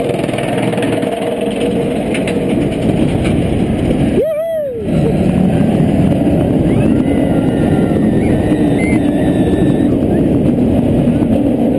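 Wind rushing over the camera microphone and the steel inverted coaster train rumbling along its track through the first drop and turns. There is a short rising-and-falling yell about four seconds in, and after it the rushing is louder.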